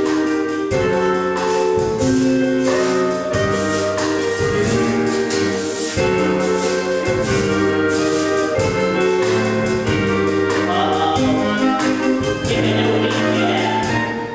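Musical-theatre accompaniment with a steady beat under held chords.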